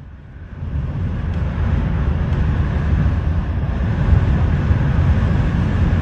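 Storm wind buffeting a phone's microphone: a loud, steady low rumble with a hiss above it, building up about half a second in.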